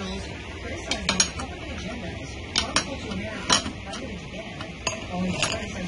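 Metal hand tools and engine parts clinking and clicking as they are handled: about eight sharp, irregular clicks over a low steady hum.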